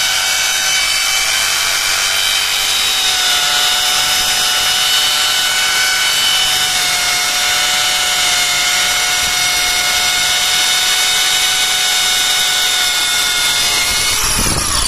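Two corded electric drills, an IBELL ID13-75 650 W hammer impact drill and an IBELL ED06-91 400 W drill, running together at full speed as 6 mm bits bore into a red clay brick. The motors make a steady high whine over the grinding of the bits, and both wind down near the end.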